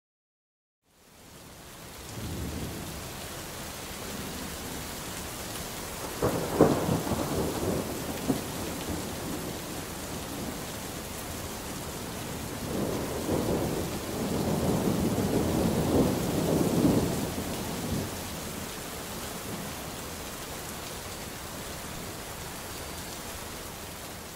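Steady rain with thunder, fading in over the first couple of seconds: a sharp peal about six seconds in, and a longer rumble swelling from about 13 to 17 seconds.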